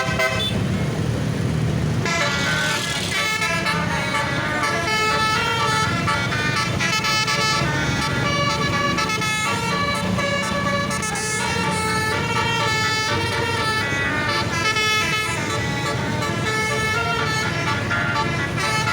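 A bus basuri horn, a multi-trumpet musical air horn, playing a long telolet melody of quickly changing notes over the low running of the bus engine.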